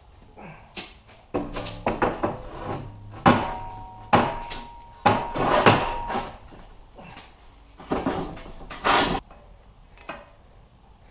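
Heavy steel plate clanking against a steel I-beam and steel table as it is set down and shifted into place: a series of metal knocks, some ringing briefly, loudest in the middle.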